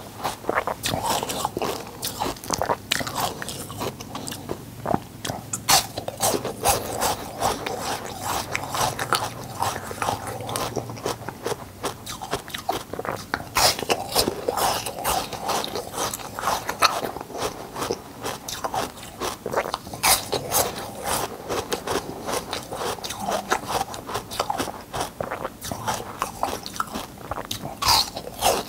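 Ice being bitten and chewed: a dense, continuous run of sharp crunches and cracks as the ice breaks between the teeth.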